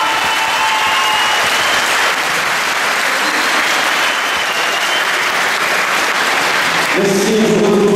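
Crowd applauding steadily, with a few shouts over the clapping. About seven seconds in, a strong pitched sound comes in over the applause.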